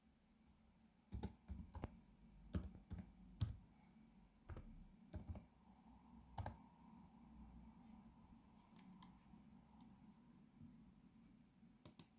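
Computer keyboard keys being typed one at a time: about ten uneven keystrokes over the first six or seven seconds, then two quick clicks near the end.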